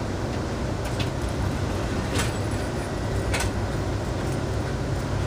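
Sunset Limited passenger train running along the track, heard from inside the car as a steady low running noise with a few sharp clicks about a second apart in the first half.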